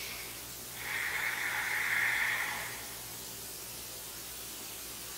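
A long, slow breath out through the nose, a soft hiss that starts about a second in and lasts about two seconds, then only a steady faint hiss.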